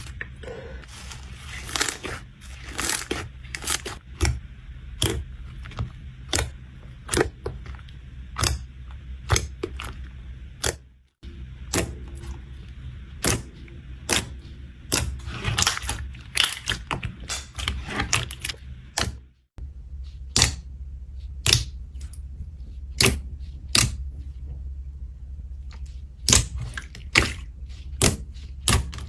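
Slime being worked by hand, with air pockets popping in sharp clicks about one or two a second over a steady low hum. The sound cuts out briefly twice.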